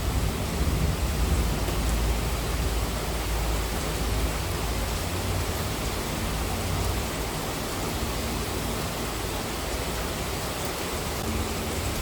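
Heavy monsoon rain falling as a steady, even wash of noise with a deep low rumble.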